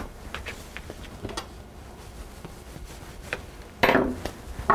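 Small clicks and taps of hands handling pieces of bread dough, a paper plate and a kitchen scale on a wooden counter, with a louder brushing sound about four seconds in.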